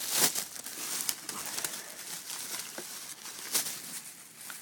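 Plastic-wrapped fireworks packages being handled: irregular crinkling and rustling, with sharper crackles near the start and about three and a half seconds in.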